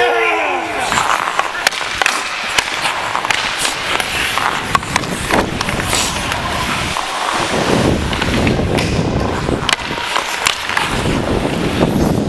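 Ice skate blades scraping and carving on the rink, with sharp clicks and knocks of sticks and puck, heard from a helmet-mounted camera. A brief falling tone sounds right at the start, and the skate scraping swells in heavier strides after the middle and again near the end.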